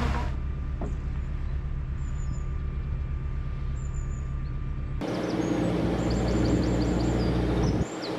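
Narrowboat's diesel engine running steadily under way, with birds chirping. About five seconds in the sound changes abruptly, the engine carrying on and the birdsong coming through more clearly.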